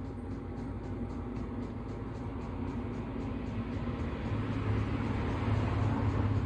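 Chinese 5 kW diesel air heater running at full power, its fan and burner making a steady rushing hum that grows a little louder about four seconds in. It is on full power because the cab it heats is cold.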